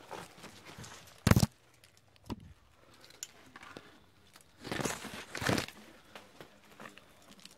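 Rustling and scraping of leaves and brush close against a body-worn camera as a climber moves at the base of a rock face, with one sharp knock about a second in and a longer rustle around five seconds in.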